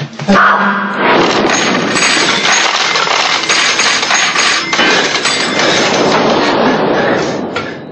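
A mass of coins clattering and clinking together, a dense jangle that starts about a second in and dies away near the end.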